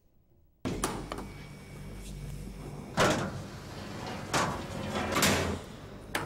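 Metal morgue cabinet doors and body trays being pulled open: a series of clunks and sliding scrapes over a steady low hum, ending with a sharp click.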